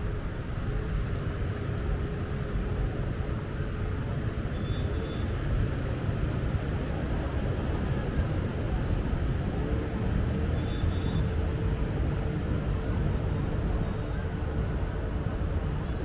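Steady outdoor rumble with an engine droning at one steady pitch; the drone drops out a few seconds in and comes back for the second half.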